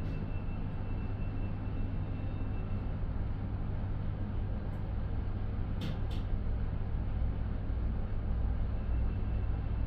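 Express passenger lift car, installed 1994, travelling down: a steady low hum and rumble from the moving car, with two quick clicks about six seconds in.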